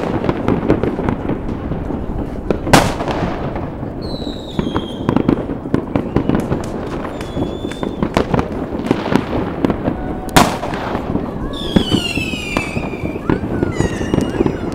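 Fireworks and firecrackers going off: a steady run of bangs and crackling, with two loud bangs about 3 and 10 seconds in, and whistling rockets whose pitch falls, around 4 seconds in and again near 12 seconds.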